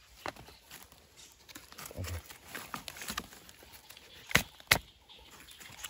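Rustling and crackling of dry leaf litter and twigs while mushrooms are picked off a log by hand, with two sharp snaps close together about four and a half seconds in.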